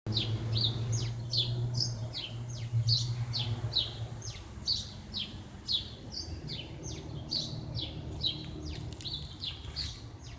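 Birds singing: a rapid string of short, downward-slurred chirps, about two a second, over a low steady hum that fades after about four seconds.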